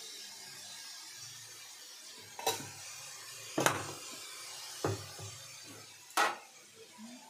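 A metal spoon knocking sharply against an aluminium cooking pan four times, a little over a second apart, over a faint steady hiss.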